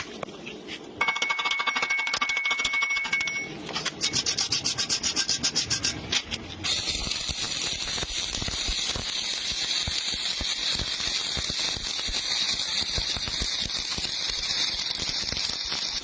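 Stick (MMA) welding arc from an ARC250 inverter welder. It stutters and sputters in rapid uneven pulses for the first few seconds, then settles about seven seconds in into a steady, high-pitched crackling sizzle as the electrode burns.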